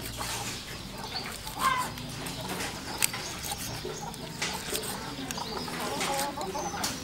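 A large kitchen knife slicing through grilled beef and knocking on a wooden chopping board in a few sharp strokes, with birds calling in the background.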